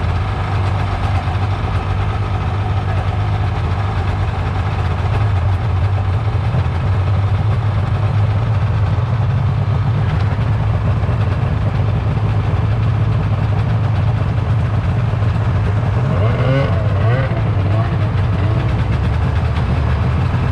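Several snowmobile engines idling together in a steady low drone. Near the end, wavering higher sounds come in over the drone as the sleds start to move off.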